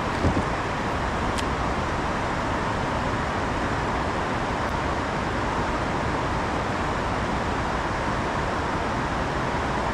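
Steady rushing noise of flowing river water, with a brief knock about a third of a second in.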